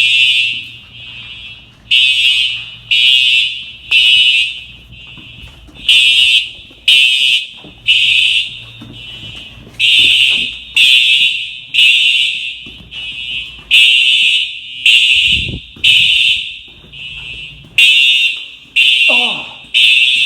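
Fire alarm sounding the temporal-three evacuation pattern: loud, high-pitched beeps in threes about a second apart, with a pause before each repeat.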